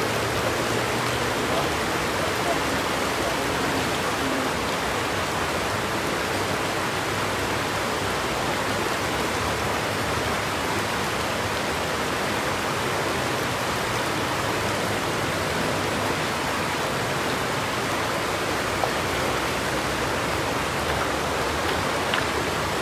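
Steady rushing of a shallow river flowing over stones, an even noise that holds level throughout.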